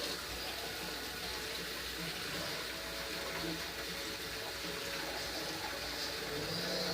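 Water running steadily from a tap, filling a bowl.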